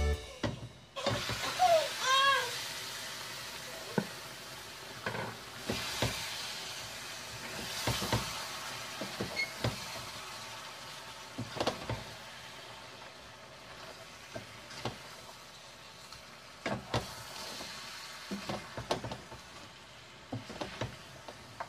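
Ground egusi frying in a pot, sizzling as steamed meat and fish are added and stirred in with a wooden spoon, which knocks against the pot again and again. The sizzle gradually quietens.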